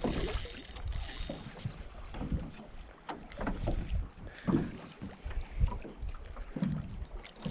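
Spinning reel whirring for about the first second as the angler reels against a hooked bass, then wind buffeting the microphone with scattered knocks from handling the rod and boat.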